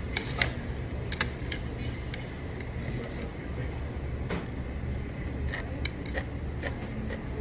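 Steady low room hum of a restaurant, with scattered light clicks and clinks of utensils against dishes.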